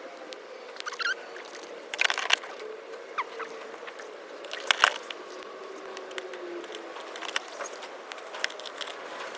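Hair dryer being taken apart by hand: irregular clicks, crackles and scraping of its plastic housing and cord, with louder clattering about two seconds in and again about five seconds in.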